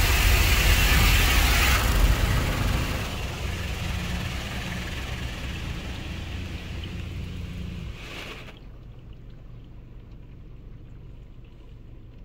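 Water jets from an Istobal Flex-5 touchless car wash gantry drumming on the car, heard from inside the cabin. The spray is loudest at first, fades, and stops abruptly about eight and a half seconds in, leaving a low steady hum.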